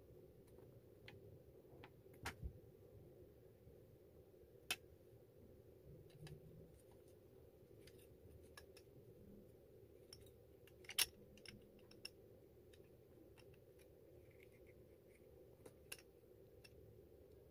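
Sparse, faint clicks and light taps of small plastic and metal parts of a digital door lock being handled and fitted back together, the sharpest about eleven seconds in, over a low steady hum.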